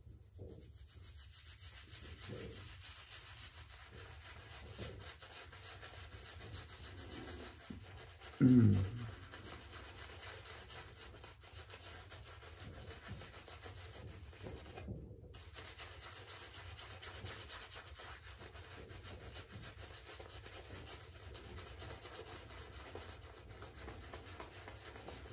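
Badger-hair shaving brush swirled over stubble, face-lathering Proraso Green shaving cream: a steady soft rubbing and brushing of wet bristles on skin and lather. A brief, louder low sound falling in pitch stands out about eight and a half seconds in.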